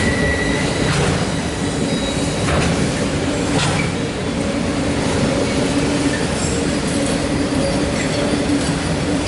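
Autorack freight train rolling past at close range: a steady, loud rumble of steel wheels on rail with a constant hum and a few sharp clacks over the rail joints.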